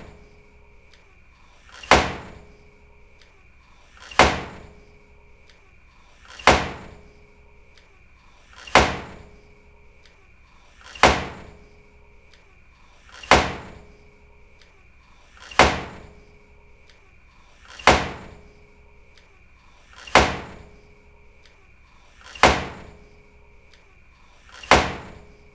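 A door slammed shut hard, over and over, about once every two and a quarter seconds: eleven sharp bangs, each with a short ringing decay. A faint steady high-pitched tone sits underneath.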